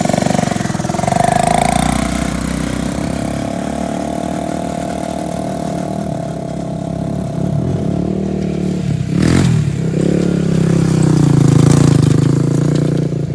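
Small engine-driven vehicle running and being throttled, its engine pitch rising and falling, loudest and highest near the end.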